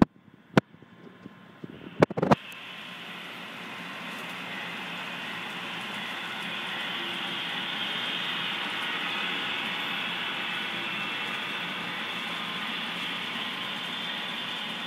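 HO scale GE AC6000 model locomotive running on the layout track: a steady running noise that builds over the first few seconds as it comes on and then holds, after a few sharp clicks about two seconds in.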